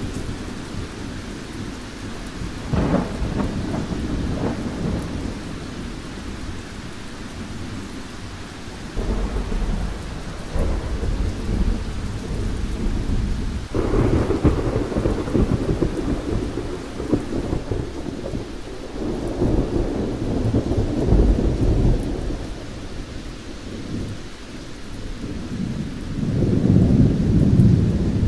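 Thunderstorm: steady rain with rolling thunder. Claps break about three, nine and fourteen seconds in, and longer rumbles swell near the end.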